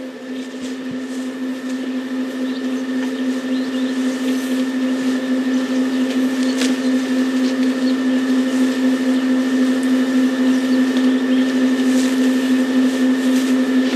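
A steady, even hum at one low pitch, growing louder over the first few seconds and then holding.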